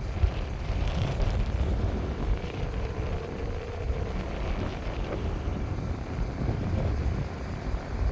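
Military helicopters circling overhead, a steady drone of rotors and engines with a faint steady tone, while wind buffets the microphone.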